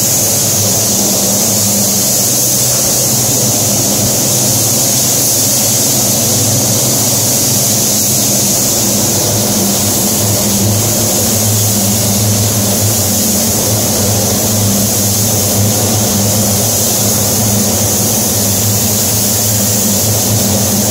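Steady loud hiss of moving air with a low hum underneath, from a paint spray booth's ventilation fans and a compressed-air spray gun laying down clear coat.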